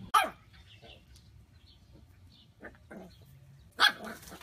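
Short animal calls: a sharp, loud cry falling in pitch right at the start, a few faint short calls in the middle, and near the end a puppy's bark.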